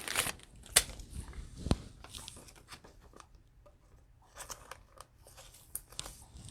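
A cellophane-wrapped pack of football trading cards being handled and opened: faint, irregular crinkling of the plastic wrapper and clicks of cards, with a sharp crackle about a second in and another near two seconds, then a brief lull before more crinkling.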